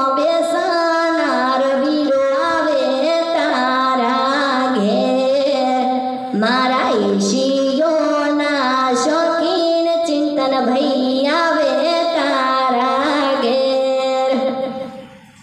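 A woman singing a Gujarati folk song solo, her voice holding long, wavering, ornamented notes; the singing stops near the end.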